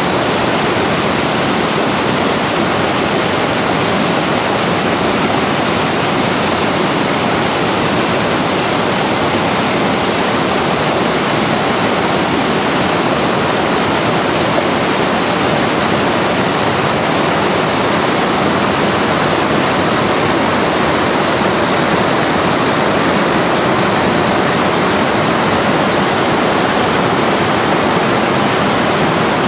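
Waterfall pouring over rock into white-water rapids: a steady, loud rush of falling and churning water.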